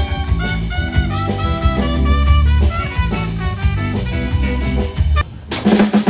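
Live band music: a trumpet playing a melody over keyboards, electric guitar, bass and drums in an instrumental passage. About five seconds in the music breaks off abruptly and a different song begins, with drums and acoustic guitar.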